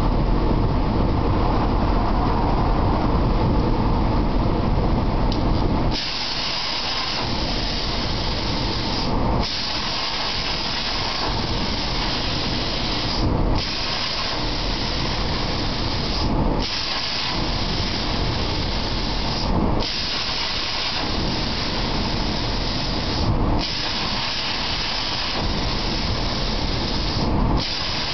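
PlasmaCam CNC plasma torch cutting 18-gauge sheet metal: a steady hiss that starts about six seconds in and breaks off briefly about every three to four seconds, six times. Before the hiss, a deeper steady rushing noise.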